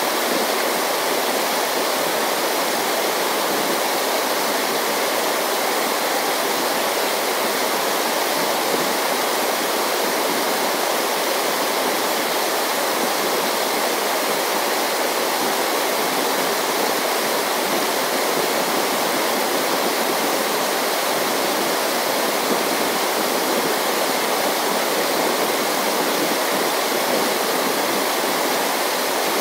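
Steady, unbroken rush of running water, with no distinct splashes or other events.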